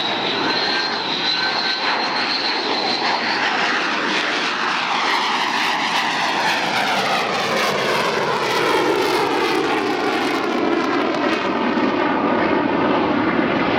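Grumman F-14 Tomcat's twin jet engines running steadily as the jet comes in to land. A high whine holds for the first few seconds, then from about four seconds in the roar takes on a sweeping, phasing quality as the jet moves past.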